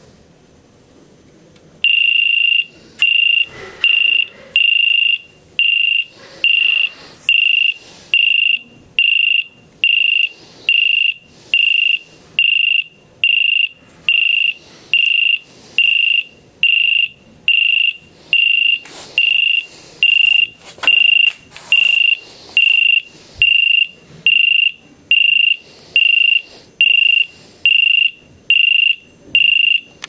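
Piezo buzzer of a homemade electronic cricket circuit chirping: a high-pitched tone sounded in short pulses, about one and a half a second, starting about two seconds in.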